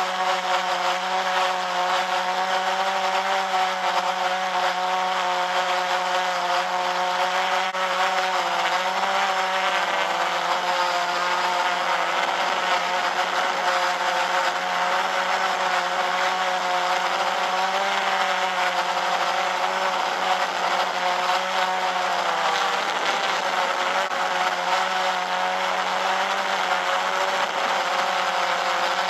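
Quadcopter drone's motors and propellers buzzing loudly and steadily, picked up by the drone's own onboard camera. The pitch wavers a little and dips briefly about two-thirds of the way through.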